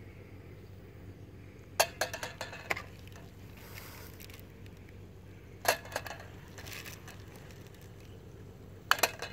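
Camping pot and utensils clinking: three short clusters of metal knocks and rattles, about three seconds apart.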